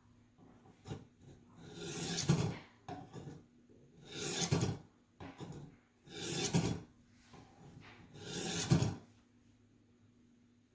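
Ka-Bar blade drawn through the hones of a Warthog knife sharpener, set on its medium angle: four rasping strokes about two seconds apart, each swelling in loudness as the edge runs along the hones. These are the first test passes over a marker-coloured edge to see where the hones bite.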